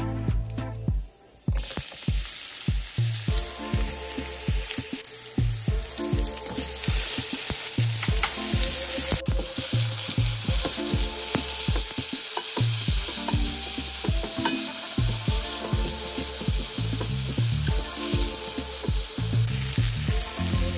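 Food sizzling in hot oil in a pan and being stirred, a steady hiss that starts about a second and a half in, after a brief pause.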